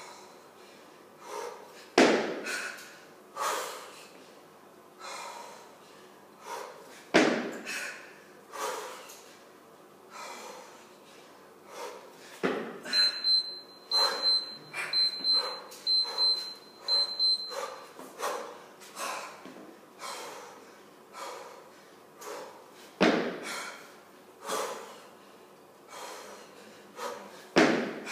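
Hard, rhythmic breathing of a kettlebell lifter through a set of jerks with an 18 kg kettlebell, with a loud thud about every five seconds as each rep is driven and dropped. A run of short, high electronic beeps sounds for a few seconds in the middle.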